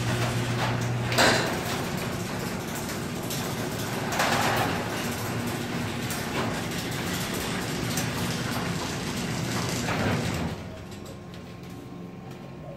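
Garage Master 1/3 HP garage door opener running, its motor humming steadily as it hauls the sectional door up its tracks with rattling and a few clunks, then stopping about ten and a half seconds in. The opener has just been repaired and greased and is working normally.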